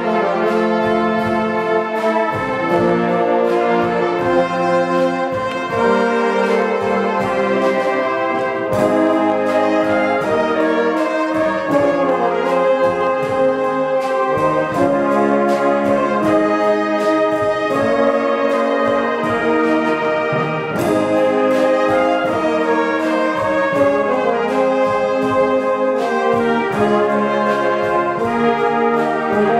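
A fanfare orchestra of more than 50 players, with flugelhorns, euphoniums, tubas and saxophones, playing a piece together over a steady percussion beat.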